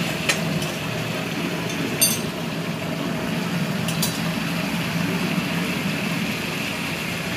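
A metal spatula knocking and scraping against an aluminium kadai as mutton pieces are stirred, three sharp clinks with the loudest about two seconds in, over the steady noise of the meat frying on a gas stove.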